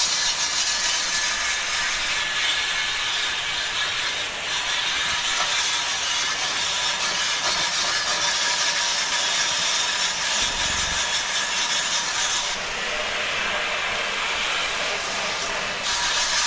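Garden hose spraying water into a metal grill, a steady hiss of water on metal as it rinses out the oven cleaner and loosened grime. The spray shifts about twelve seconds in and again near the end.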